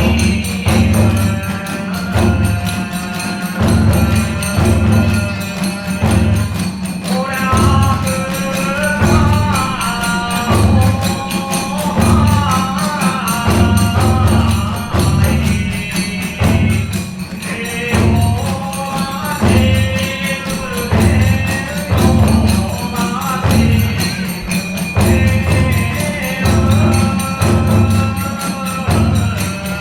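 Kagura hayashi ensemble playing dance music: a large barrel drum (ōdaiko) and small drums keep a steady beat of about one low stroke a second, small hand cymbals (tebyoshi) clash, and a bamboo transverse flute (fue) plays a wavering melody.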